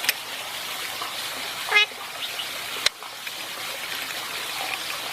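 An Indian ringneck parrot gives one short, falling call about two seconds in, over a steady hiss. A sharp click follows about a second later.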